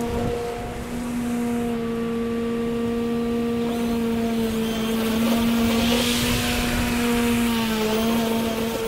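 Ego battery-powered push mower running as it is pushed through grass: a steady motor-and-blade hum with a higher overtone. The pitch dips briefly near the end, and a short rise in hiss comes about two-thirds through.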